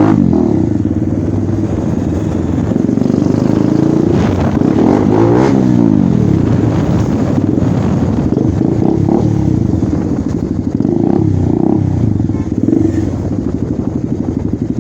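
Bajaj Dominar 400's single-cylinder engine running with its exhaust removed, loud and open, as the motorcycle is ridden. The revs rise and fall several times.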